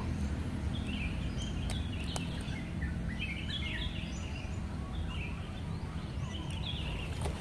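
Small birds chirping in short, repeated phrases over a steady low rumble, with a couple of faint clicks.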